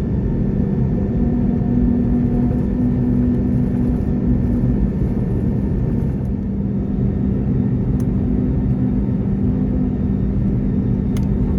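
Steady low cabin rumble of an Airbus A321neo after landing, its CFM LEAP-1A engines running at idle, with a few steady tones in the hum. A few faint clicks come near the end.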